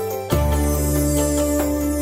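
Background music: sustained notes with a bass that comes in about a third of a second in.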